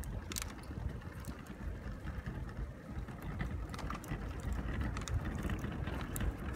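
Riding along a rough, bumpy paved road: a steady low rumble of tyres and wind on the microphone, with scattered clicks and rattles from the ride.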